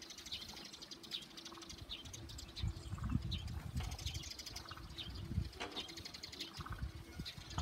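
Small birds chirping in short, repeated calls, with wind gusting on the microphone in low rumbles, strongest in the middle. A faint steady hum sits underneath.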